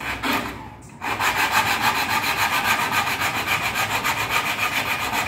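Neck of a plastic soft-drink bottle rubbed back and forth on a sharpening stone in rapid, even scraping strokes, several a second. It starts in earnest about a second in, grinding the neck's end flat.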